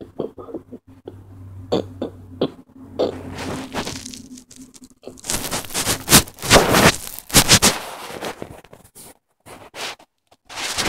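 Rustling and scraping noises right against a phone's microphone as the phone is handled. There are scattered clicks at first, then a run of loud, noisy bursts in the middle and another near the end.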